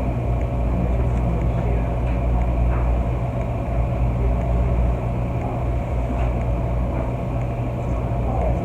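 Steady low hum and rumble of laundromat machines running, with a few faint light ticks over it.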